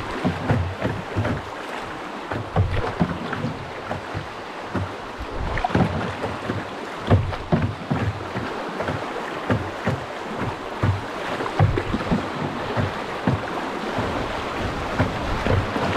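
Water splashing and lapping around a small paddled boat on a river, with irregular low thumps several times a second over a steady rush of water noise.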